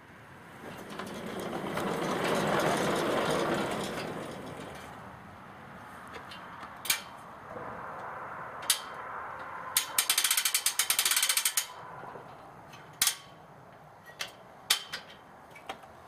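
Homemade band sawmill's saw head rolled along its track, a rumbling rush that swells and fades over the first few seconds, then metal clicks and, about ten seconds in, a ratchet clicking rapidly for about two seconds as the mill is set for the next cut, with the engine not yet running.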